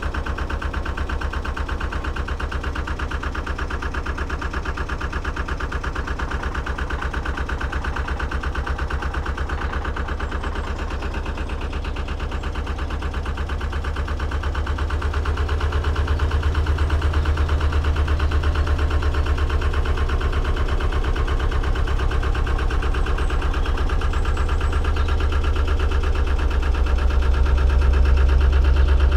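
Narrowboat's diesel engine running steadily at low speed with an even low pulsing, growing louder from about halfway through and loudest near the end.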